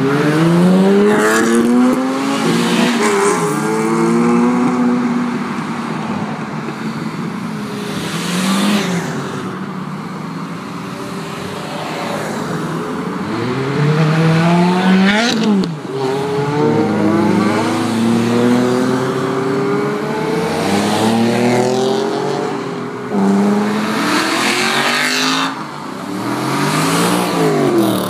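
Cars passing close by one after another, about seven in all, each engine note rising as it approaches and dropping in pitch as it goes by; the loudest pass comes about halfway through.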